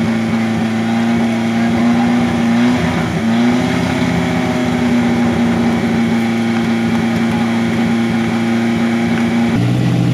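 Off-road 4x4 jeep engine running at high, steady revs while crossing a river. The note dips briefly about three seconds in, picks back up, and changes pitch near the end.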